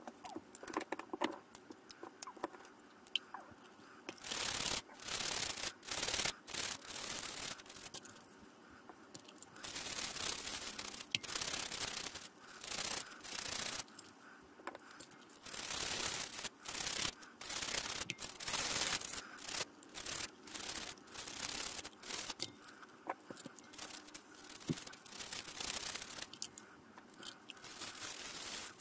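Toothbrush bristles scrubbing small plastic puzzle pieces in soapy water, in bursts of quick back-and-forth strokes lasting a second or few with short pauses between. A few light clicks from the plastic pieces being handled come before the scrubbing starts.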